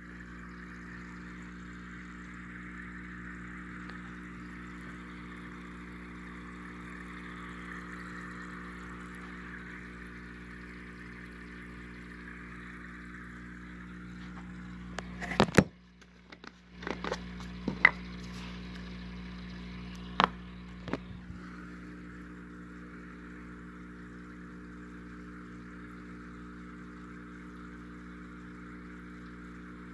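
A steady electric hum with a soft watery hiss runs throughout. About halfway it breaks off briefly amid a cluster of sharp clicks and knocks as plastic jars are handled.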